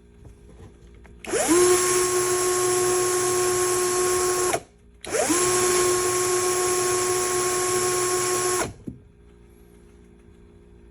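Small electric drill running in two bursts of about three seconds each, spinning up quickly to a steady high whine and then stopping, with a short pause between the runs.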